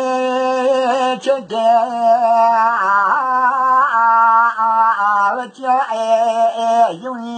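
An elderly man singing unaccompanied, holding long notes with a wavering, ornamented pitch. A few short breaks for breath.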